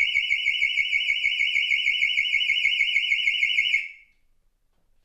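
Truckminder anti-theft alarm siren sounding with a loud, fast-warbling electronic tone, set off by a pipe cutter on the exhaust pipe next to the catalytic converter as a mock theft attempt. It cuts off about four seconds in.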